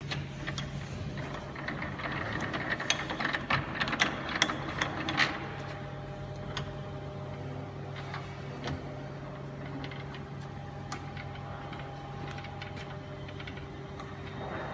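1950s Meuser lathe running: a steady motor hum with gear whine, and a clatter of sharp clicks and knocks through the first five seconds or so that then eases off.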